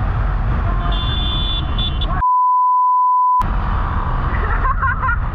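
Wind rush and motorcycle engine noise while riding, broken about two seconds in by a steady, pure bleep tone lasting just over a second, during which all other sound is cut out, as when swearing is bleeped.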